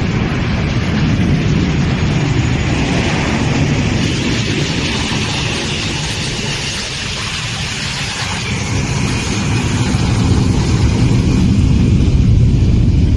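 Steady, loud rumble of engines on an airport runway: a DHL Boeing 757 cargo jet rolling out on its emergency landing, with fire trucks driving past. The noise dips slightly about halfway and swells again near the end.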